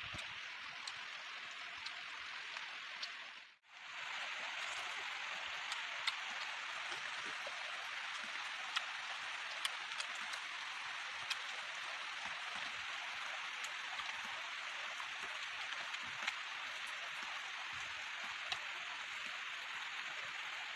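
Steady rain hiss with scattered faint clicks and taps through it. The sound drops out briefly about three and a half seconds in.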